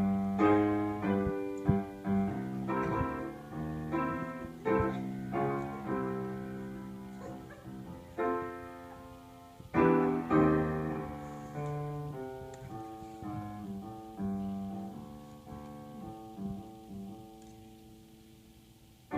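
Solo piano playing slow chords, each struck and left to ring, with a fresh run of notes about ten seconds in and the playing dying away near the end.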